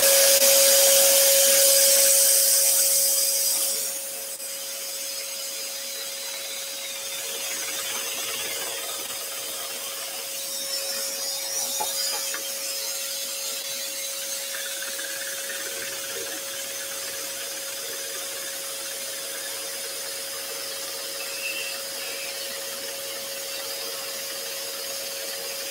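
Axminster Trade AT406SS scroll saw running and cutting a board along a template, with a steady hum from the machine. A loud rushing noise over the first four seconds drops away sharply.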